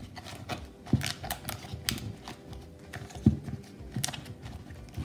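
Banana leaves rustling and crinkling as hands press them into a clay pot, with irregular light knocks and taps against the pot.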